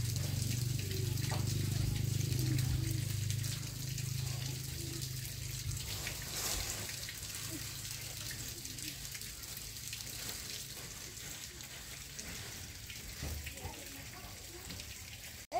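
Water running steadily, as from a tap, over a low hum that is strongest for the first six seconds or so and then fades.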